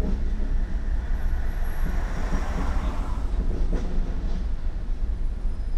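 Steady low rumble inside a car's cabin from the running car, with a rushing noise that swells and fades about two to three seconds in.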